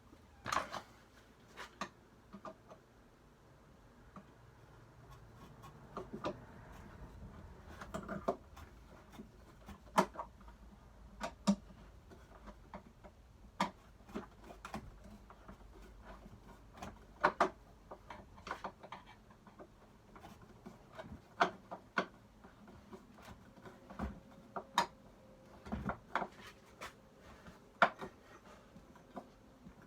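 Irregular sharp clicks and knocks of small hard objects being handled and set down during hand work on a wooden toolbox, about one every second or two.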